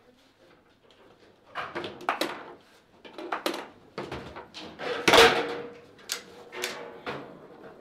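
Foosball match play: the ball is struck by the plastic players and knocks against the table walls, with rods clacking in the bumpers, in a run of sharp knocks starting about a second and a half in. The loudest knock comes about five seconds in.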